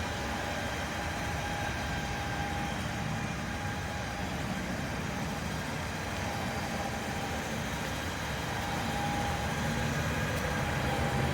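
A vehicle engine running steadily, a low rumble with a faint high whine that comes and goes.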